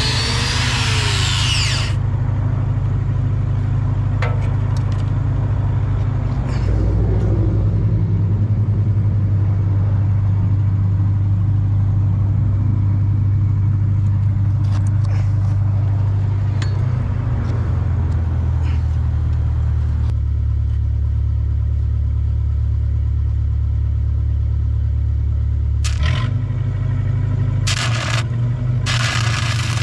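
Engine running with a steady low drone, its pitch shifting a few times, with a few faint knocks and a stretch of hissy crackle near the end.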